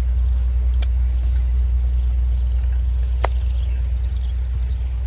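Steady low rumble of wind buffeting the microphone, with a few sharp clicks as the cast net and its lead sinker chain are handled, the loudest about three seconds in.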